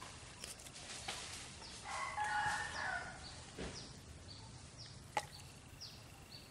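A rooster crowing once, about two seconds in, over a run of short high chirps repeating about twice a second, with a few sharp clicks.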